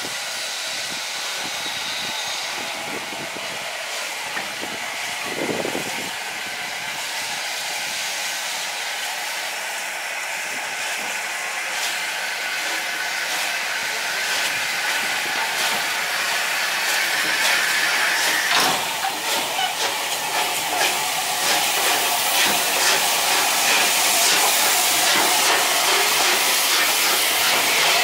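Bulleid Battle of Britain class steam locomotive running slowly tender-first past, with a steady hiss of steam that grows louder as it draws near. Short metallic clanks and knocks join in from about two-thirds of the way through.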